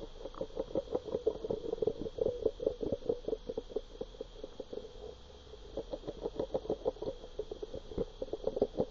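Bassman Mumbler spinnerbait heard underwater as it is retrieved: a rapid, even pulsing from its spinning blade, about five or six beats a second. The beat fades for a moment midway, then comes back strongly.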